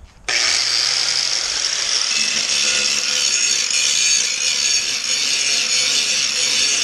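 Angle grinder grinding rust off a piece of steel, with a steady high-pitched hiss that starts suddenly about a third of a second in.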